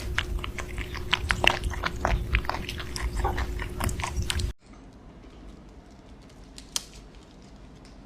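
An animal chewing noisily, a dense run of crunching clicks for about four and a half seconds, then a sudden cut to a much quieter stretch with only a few faint clicks.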